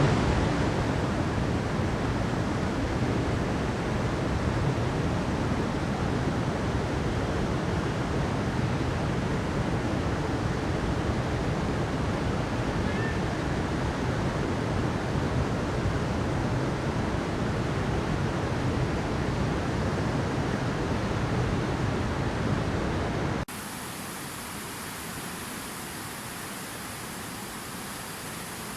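Steady rushing water with a full, even roar. About three-quarters of the way through it cuts abruptly to a quieter, hissier water sound.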